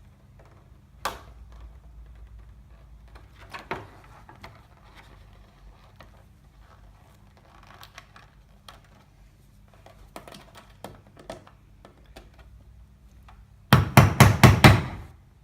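Small clicks and handling of small fastener parts, then near the end a quick run of about six loud hammer strikes, setting rivets and snap poppers in plastic armour.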